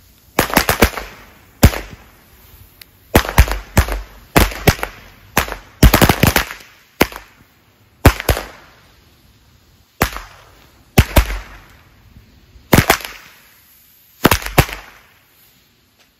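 Broekhoff 'Centipede' firecracker chain going off: loud, sharp bangs in quick clusters, separated by gaps of up to about a second and a half. The last cluster fires about fifteen seconds in.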